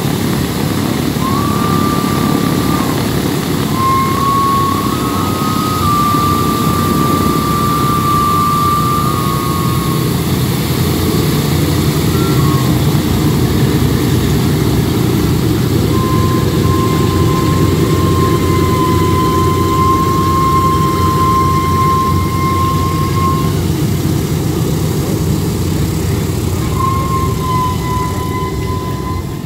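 Boeing B-17 bomber's four Wright R-1820 Cyclone radial engines running at taxi power, a loud steady low drone. A thin high whine comes and goes over it several times.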